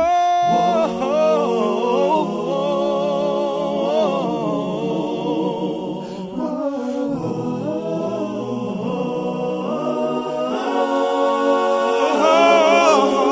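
A cappella vocal group singing wordless harmonies: several voices holding chords that shift every second or two.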